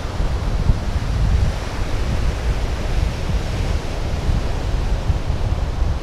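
Wind buffeting the microphone in an uneven low rumble, over the steady wash of sea surf.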